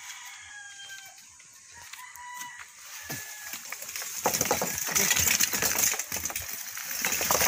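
Faint bird chirps, then from about four seconds in a loud, gritty crunching and rattling as sand filter media is poured and shovelled into a plastic drum.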